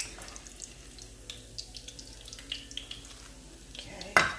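Hush puppies frying in a saucepan of hot oil, with scattered crackles and pops. A sharp clatter comes near the end.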